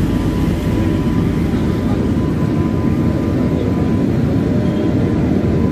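Steady low rumble of background noise with a faint murmur of indistinct voices.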